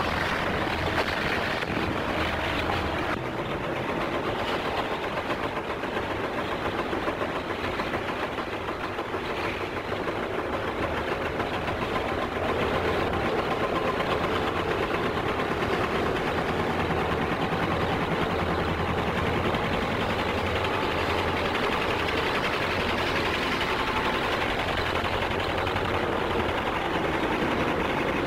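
Street traffic of old motor trucks and cars driving past, a steady rumble of engines with mechanical clatter, a little quieter for a few seconds before picking up again about twelve seconds in.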